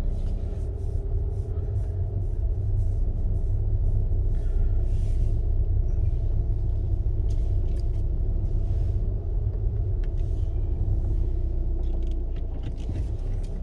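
Car engine and road rumble heard from inside the cabin: a steady low drone with a steady hum over it and a few light clicks.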